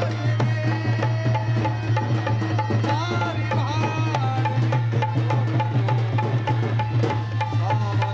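Rajasthani Kalbeliya folk music: hand drums play a steady, busy rhythm over a continuous low drone, with a melody line that slides up and down in pitch.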